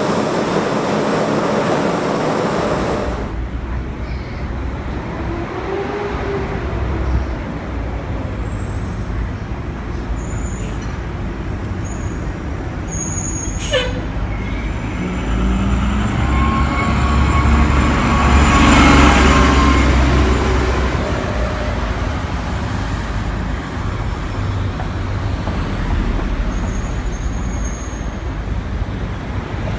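A Budd R32 subway train runs at the platform for the first few seconds. After that the sound gives way to city diesel buses idling and pulling away in street traffic, with a steady low engine rumble. A brief air-brake hiss comes about halfway through, and an engine swells louder a little later.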